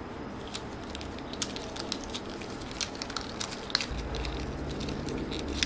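Plastic drinking-straw segments of a homemade tangle toy clicking and rustling against each other in irregular small clicks as the toy is twisted in the hands.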